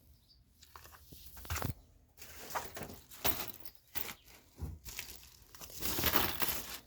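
Tools and their packaging being handled and rummaged through in a box: irregular rustling and crinkling with a few short knocks, the longest rustle about six seconds in.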